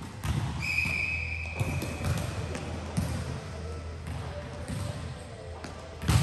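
A ball thudding on a hard court floor several times amid voices, with a held high tone lasting about two seconds near the start and a louder thud near the end.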